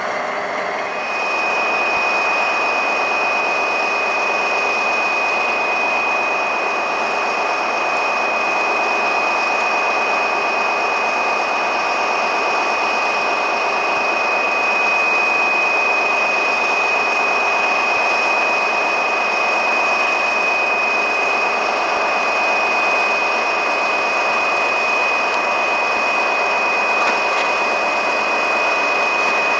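AGC regional railcar running slowly, a steady engine sound with a high steady whine over it.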